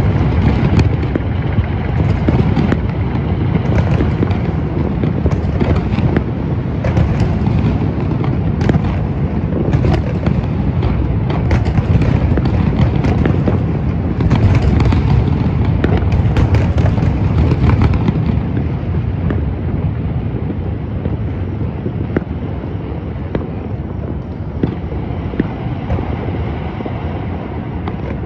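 New Year fireworks and firecrackers going off in a dense barrage of many overlapping bangs and crackles over a continuous low din. About two-thirds of the way through the barrage thins out, leaving the din with scattered single bangs.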